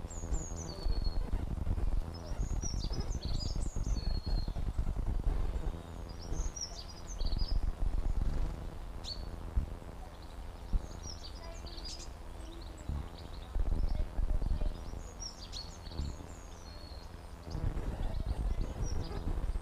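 Birds chirping, over a low rumbling crackle that comes and goes in stretches of a few seconds, with a couple of sharp clicks: the popping noise of a GoPro's audio.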